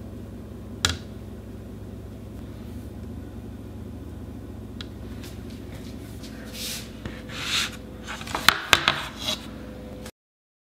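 Kitchen handling noises over a steady low hum: one light tap about a second in, then rustling with a cluster of sharp clicks and knocks near the end, cut off abruptly.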